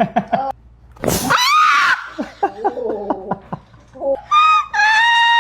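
A person's vocal reaction to a chiropractic adjustment: a loud shriek about a second in, broken laughter, then a long high-pitched cry near the end.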